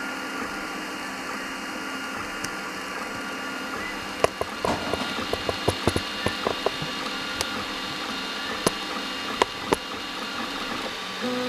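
Anet A8 3D printer's stepper motors whining in level tones that jump from pitch to pitch as the print head moves, printing a PETG calibration square. From about four seconds in, a scatter of sharp clicks and taps sounds over it.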